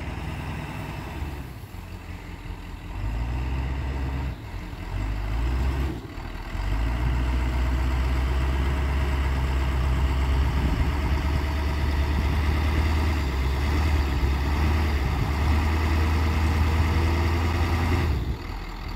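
Ford pickup truck's engine working under throttle as the truck reverses through snow. A few short pushes of throttle come in the first six seconds, then a long steady pull of about eleven seconds that drops back to idle about a second before the end.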